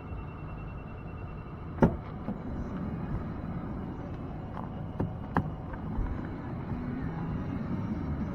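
A sharp knock about two seconds in, then two lighter clicks about three seconds later, over a steady low rumble of wind on the microphone.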